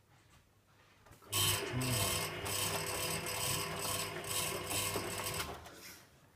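Servis Slimline 308S washing machine's drum tumbling the wash load under motor drive for about four seconds. It starts abruptly about a second in and winds down near the end, one turn of the wash cycle's tumble-and-pause rhythm.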